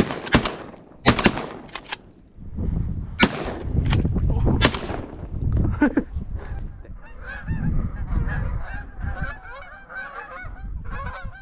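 A volley of shotgun shots in the first five seconds, then from about seven seconds a flock of Canada geese honking continuously, with wind rumbling on the microphone.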